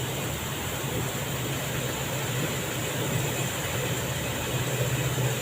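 Micro hydro generator running steadily: an even mechanical hum with a constant rushing hiss over it.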